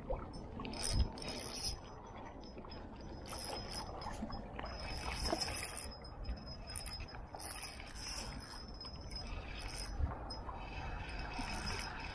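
Spinning reel being cranked to retrieve line, a mechanical whirring in short spurts with pauses between, as the lure is worked back in, with a couple of low handling bumps.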